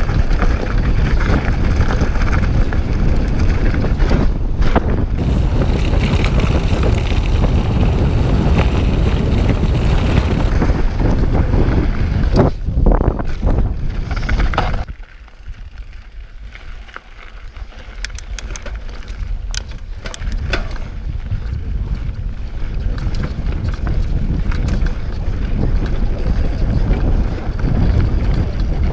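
Wind buffeting the microphone and knobby mountain-bike tyres rolling over a dirt and gravel trail during a fast descent, a loud steady rumble. About halfway through it drops away sharply as the bike slows, with a scatter of light clicks, then builds back up as speed picks up again.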